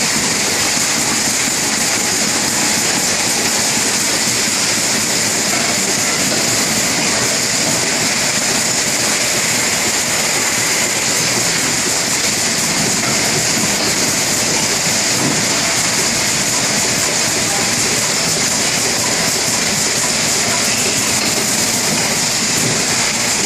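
Rotary automatic pouch-packaging machine running continuously: a steady mechanical clatter of fast, even ticks over a constant hiss.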